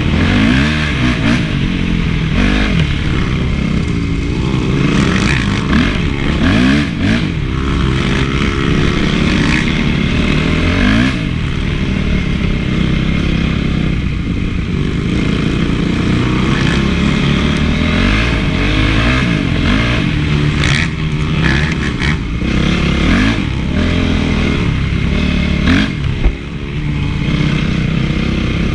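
Honda CRF450's four-stroke single-cylinder engine revving up and falling back again and again as the motocross bike is ridden, with clatter and knocks from the bike over the ground.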